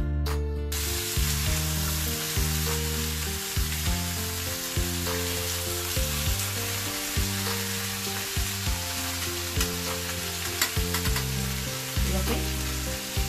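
Chicken pieces sizzling in hot oil in a wok, being turned and stirred. The sizzle starts a little under a second in, and utensils knock against the pan from time to time.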